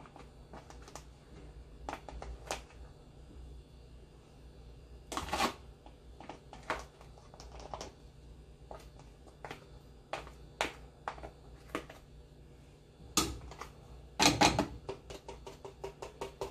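Thin plastic bag crinkling, with irregular clicks and rustles as crumbly, moist tapioca is shaken out of it into a nonstick frying pan. There is a louder burst of crinkling about five seconds in and a denser run of rustles and clicks near the end.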